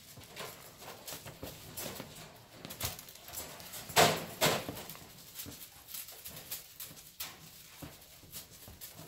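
Irregular light taps, scuffs and rustles of two Havana Brown kittens pouncing on and batting a feather wand toy on a fabric couch, with a louder knock about four seconds in.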